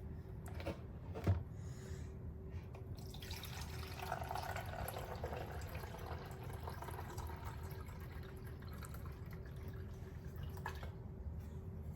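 Water running and dripping: a steady hiss that swells about three seconds in and dies away near the end, with a single click about a second in.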